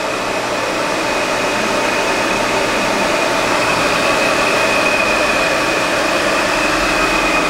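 Myford MG12-HA hydraulic cylindrical grinder running under power, its grinding-wheel motor and hydraulic system giving a steady hum with a high, even whine.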